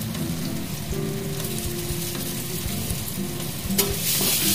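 Chopped pieces and ground spice mix sizzling in hot oil in a kadai. Near the end a spatula knocks against the pan once, and the sizzle grows louder as the mix is stirred.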